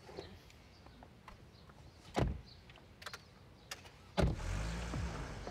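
A car door slams shut about two seconds in. About four seconds in, a car engine starts and runs with a steady low hum.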